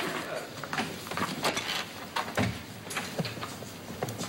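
A corded desk telephone being picked up and handled, giving a series of irregular light clicks and knocks, one a duller thud about halfway through.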